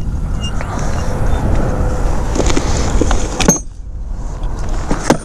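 Clicks and light jingling of gear being rummaged in a motorcycle's side bag, over a steady rushing noise with a low rumble that cuts off suddenly about three and a half seconds in.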